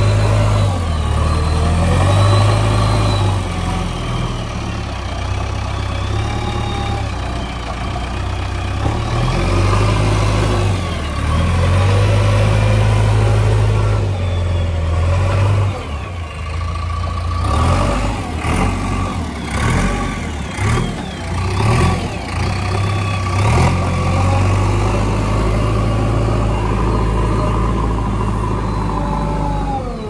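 JCB 3DX backhoe loader's diesel engine running and revving up and down as the machine drives and works its front loader bucket of soil. In the middle stretch a run of short knocks and clanks breaks up the steady engine note.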